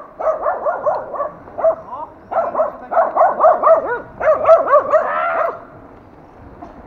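A dog barking in quick runs of short, high barks, about five a second, that stop about five and a half seconds in.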